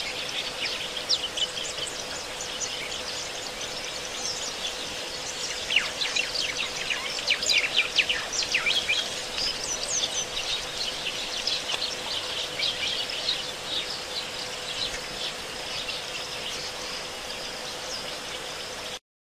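Many birds chirping and calling in quick short notes, busiest from about six to nine seconds in, over a steady faint hum; the sound cuts off abruptly near the end.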